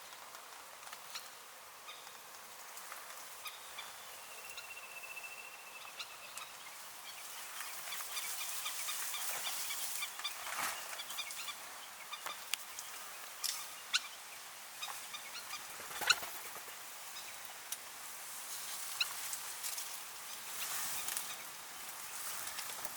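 Birds calling: many short, high chirps and calls, a brief steady whistle early on, and scattered sharp clicks, the loudest about two-thirds of the way through.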